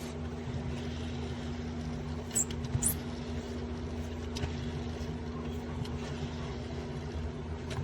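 Steady low background hum with a few faint light clicks about two and a half to three seconds in.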